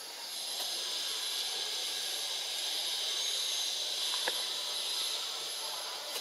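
A steady, high-pitched insect buzz from the surrounding forest swells in just after the start and fades near the end. A single faint click comes about four seconds in.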